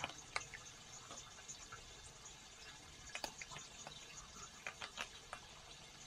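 Raccoon eating cat food from a dish: scattered soft clicks and smacks at irregular moments, a few of them sharper, notably a little after three seconds and again around five seconds.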